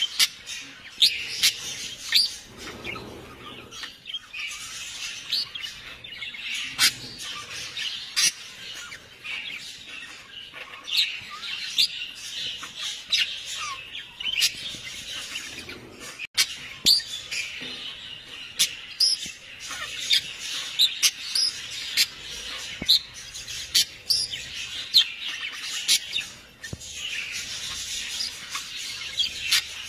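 Birds chirping: a dense, continuous chatter of many short, sharp calls.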